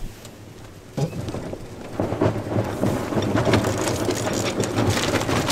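Wind buffeting the microphone and water rushing past the hull of a heeling sailboat under way. There is a knock about a second in, and from about two seconds on a loud, dense crackle of small clicks over a low rumble.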